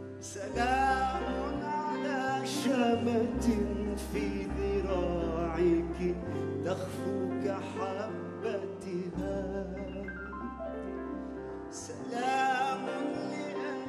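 A male singer sings an Arabic song live over piano and keyboard accompaniment with sustained bass notes. The voice pauses for a few seconds near the end while the keyboard carries on, then comes back in.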